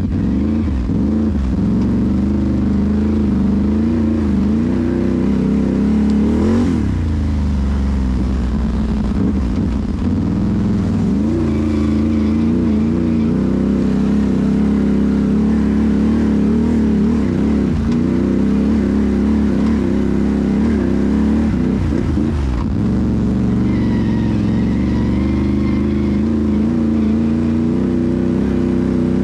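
Can-Am Renegade ATV's V-twin engine running under way, its pitch rising and falling as the throttle is worked, with a sharper rev up and back down about six to seven seconds in.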